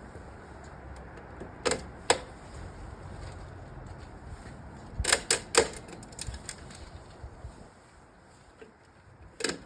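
Plastic cover clips of a modular living-wall system being pressed and snapping into place: sharp clicks, two about two seconds in, three in quick succession around five seconds, a few lighter ones after, and one more near the end.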